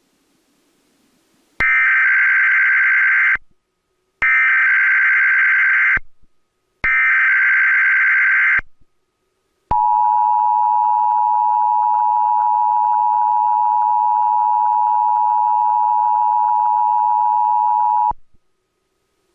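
Emergency Alert System encoder sending the start of a Required Monthly Test. First come three identical bursts of SAME header data, each a buzzing digital screech of about a second and a half with short gaps between. Then, about ten seconds in, the steady two-tone attention signal (853 and 960 Hz together) sounds for about eight and a half seconds and cuts off sharply.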